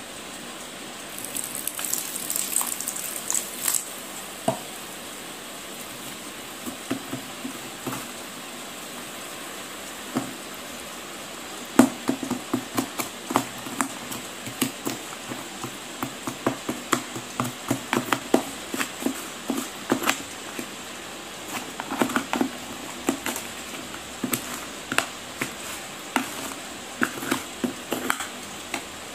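A metal spoon breaking up and crunching through dried, cracked clay chunks in a plastic tub. First a brief gritty rustle, then from about twelve seconds in a run of sharp, irregular crunches and clicks, several a second.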